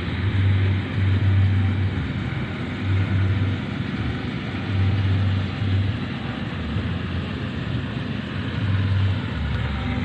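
A motor running steadily, with a low rumble that swells and fades irregularly.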